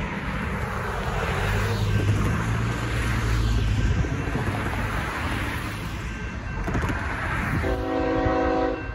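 Cars driving across the grade crossing, their tyre noise rising and falling as each one passes. Near the end, the approaching BNSF freight locomotive sounds its horn in a short chord of several notes.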